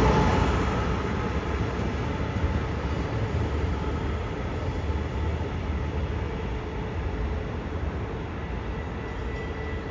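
Brightline passenger train rolling past and moving away: a steady rumble of wheels on rail, loudest at first and slowly fading.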